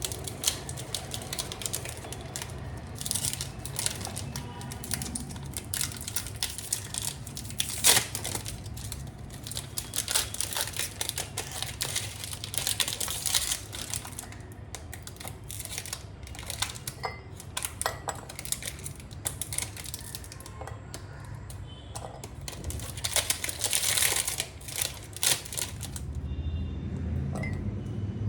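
Crinkling, rustling and irregular clicks of objects being handled by hand, with a steady low hum underneath.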